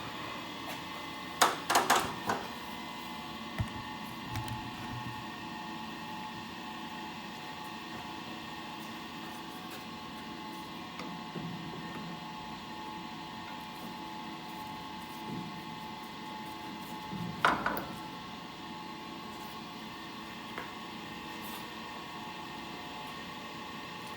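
A few ringing metal clanks about two seconds in and a couple more about seventeen seconds in, as the grinding wheel is worked against its hydraulic (hydrolock) mandrel, held on by a locking key. Under them a steady hum.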